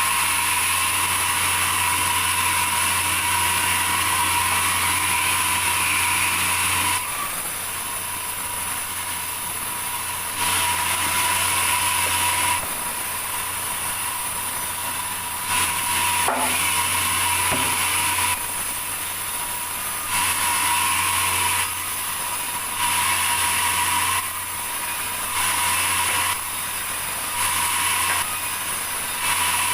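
Sawmill machinery running with a constant hum and whine, the sound stepping up and down between louder and quieter stretches every few seconds.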